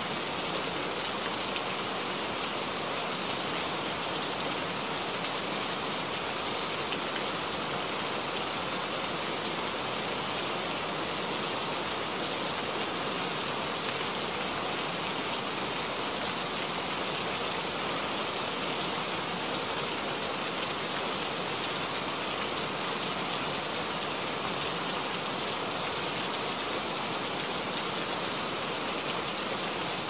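Steady, even hiss of falling water, with little low rumble.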